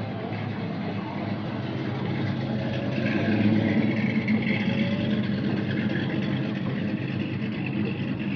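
A classic car's engine running at low speed as the car rolls slowly past, a steady low rumble that swells about three seconds in.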